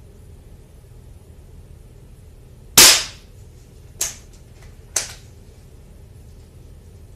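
A Daisy 1140 .177 break-barrel spring-piston air pistol fired once, a sharp crack about three seconds in. It is followed by two smaller sharp clicks about a second apart.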